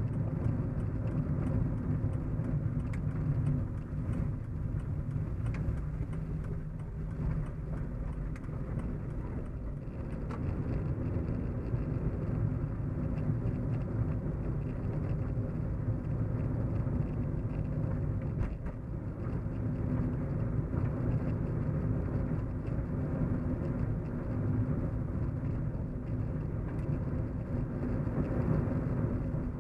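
Steady low hum of a car driving, heard from inside the cabin: a continuous engine and road rumble with a few faint steady low tones, varying only slightly in level.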